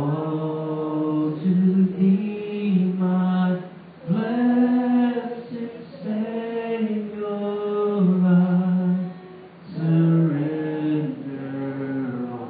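A man singing a slow hymn into a microphone without instruments, holding long notes.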